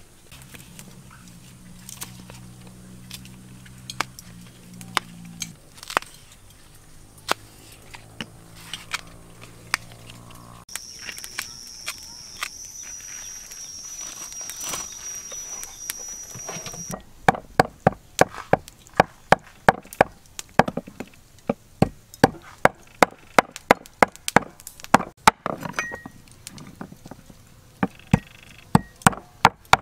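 Knife chopping on a wooden board: a steady run of sharp strokes, about two a second, starting a little past halfway and the loudest sound throughout. Before it there are faint scattered taps over a low hum, then a high thin whine for several seconds.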